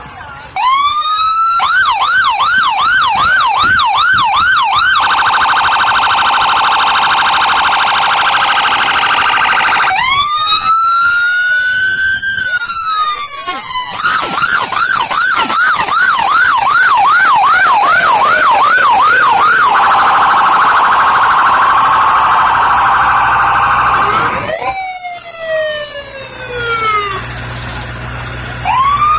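Electronic siren of a passing police truck, switching between modes: a fast up-and-down yelp, a steady blaring tone, and a long rising wail. The pattern repeats, then winds down in a falling sweep near the end and starts to rise again.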